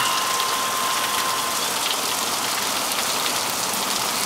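Heavy rain pouring down steadily. A steady high beep-like tone runs for about the first second and a half, then stops.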